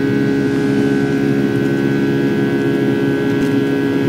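Steady cabin drone of a Boeing 757-300's Rolls-Royce jet engines heard inside the passenger cabin during the climb, a constant hum with several steady tones.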